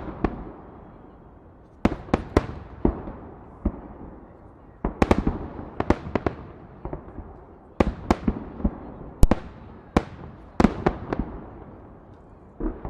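Fireworks salute: loud bangs of aerial shells bursting in clusters of several at a time, a new cluster about every two to three seconds, each bang trailing off in an echo.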